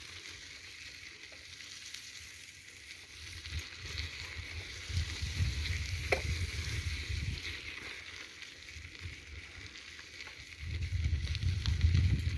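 Light rain hissing steadily, with low rumbles on the microphone about four seconds in and again near the end, and a single sharp tick about six seconds in.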